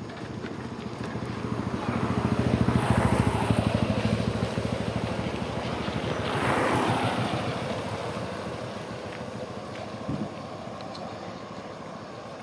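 A motor vehicle passing close by, its engine pulsing, growing loud about two to four seconds in, swelling again about seven seconds in, then fading away.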